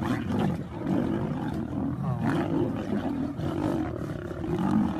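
Several lions fighting, roaring over one another without a break, with one pitched cry rising and falling about two seconds in.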